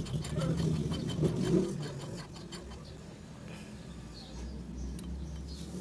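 Light metallic clicking and chain rattle as a small four-stroke motorcycle engine's flywheel is turned by hand, moving the piston in its freshly fitted cylinder with the timing chain loose on its sprocket. The engine is not running. A low steady rumble comes in about four seconds in.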